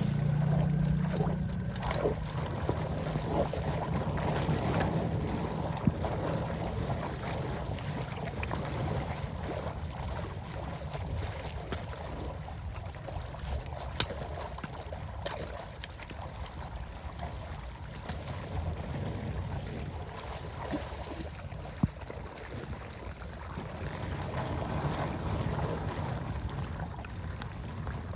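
Water rushing steadily, with wind buffeting the microphone and a few sharp clicks.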